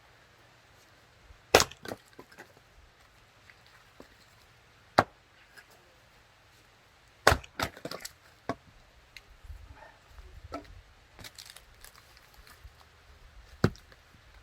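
Axe splitting firewood: four sharp chops a few seconds apart, the third followed by a quick run of smaller knocks as split pieces fall.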